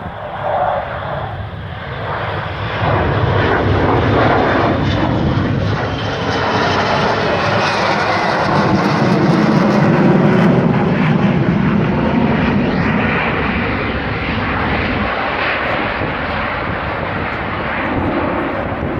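F-35B Lightning II jet engine running loudly as the aircraft flies in short-takeoff/vertical-landing mode, with the lift fan exposed and the main exhaust nozzle turned downward. The jet noise swells about three seconds in and then holds.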